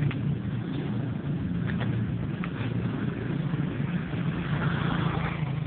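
A small motorcycle engine running as it passes close by, louder for a moment near the end, over a steady low rumble.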